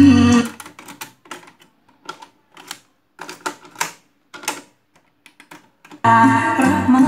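Pioneer CT-W511R double cassette deck: the tape's music cuts off just after the start, then a string of irregular clicks and clunks from its front-panel buttons and tape transport mechanism, and the music starts playing again about six seconds in.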